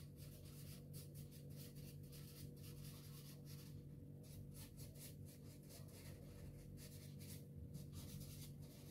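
Soft pastel stick scratching over paper in quick back-and-forth shading strokes, about three a second with brief pauses, faint.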